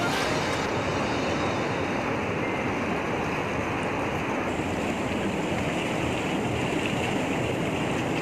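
Steady churning rush of water from a hot tub's running jets, an even noise without pauses.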